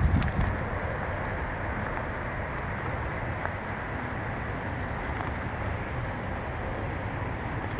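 Steady wind outdoors, with a gust buffeting the microphone at the start.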